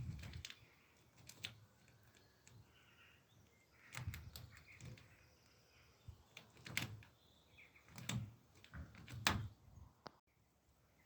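A bird of prey tearing at and eating meat: irregular sharp clicks and snaps with soft low thumps, in scattered clusters.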